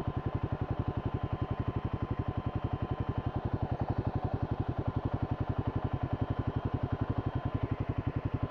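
Royal Enfield Himalayan 450's single-cylinder engine idling steadily, an even beat of about ten firing pulses a second with no revving.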